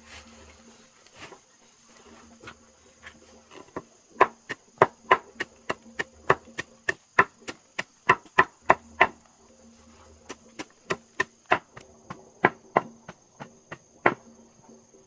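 Repeated sharp chopping strikes, about two to three a second, starting about four seconds in, pausing briefly, then going on. A steady high insect drone runs underneath.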